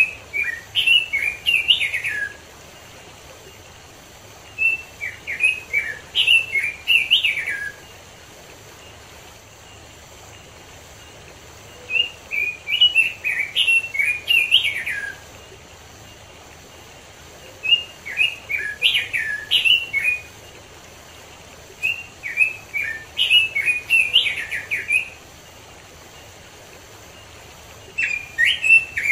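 Red-billed leiothrix (Pekin robin) singing: rich warbled phrases of quick, rising and falling whistled notes, each about two to three seconds long. A new phrase comes every few seconds, six in all, the last running on past the end.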